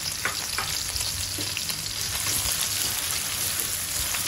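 Sliced onions sizzling in hot oil in a stainless-steel wok, with a spatula stirring through them near the end.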